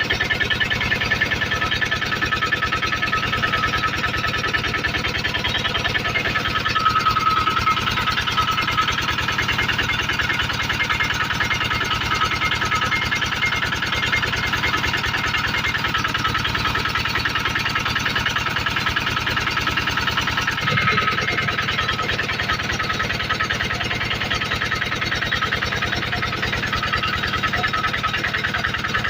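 Generator engine running steadily at a constant speed, with a slight shift in its tone about two-thirds of the way through.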